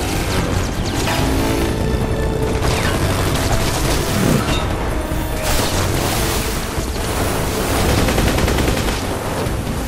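Film action-scene mix: sustained machine-gun fire with bullet impacts and blasts kicking up dirt, over a motorcycle engine revving and orchestral score.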